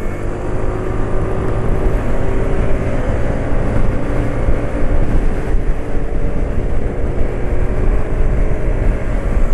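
Scooter on the move at about 60 km/h: wind rushing over the microphone with the engine's drone beneath it. The engine note eases down over the first few seconds and settles again after about five seconds.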